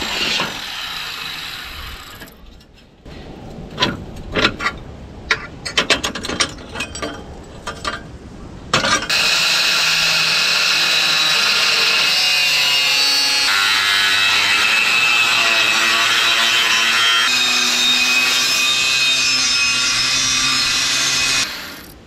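Corded angle grinder with a cutoff wheel cutting through rusty steel plate. A short run at the start is followed by several seconds of sharp knocks and clatter. Then comes a long, steady grinding hiss with a motor whine that shifts in pitch as the wheel bites, and it stops about a second before the end.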